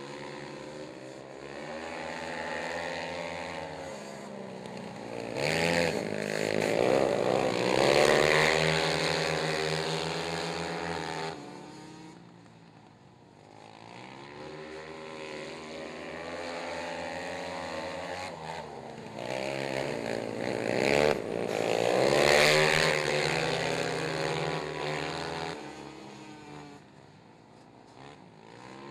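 Engines of two racing quad ATVs revving up and down under throttle, growing loud and fading away as they pass close by twice, about fourteen seconds apart.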